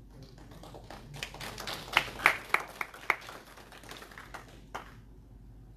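Sharp clicks and knocks of a clip-on microphone and its belt pack being handled as they are taken off, a quick run of loud taps in the middle, then a last knock near the end.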